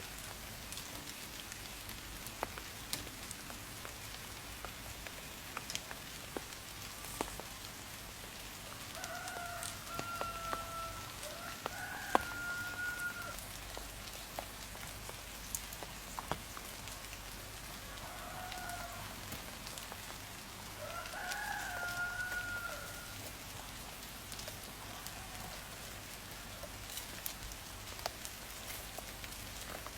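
A rooster crowing twice, each crow a long call of about four seconds, over a steady hiss with scattered sharp ticks.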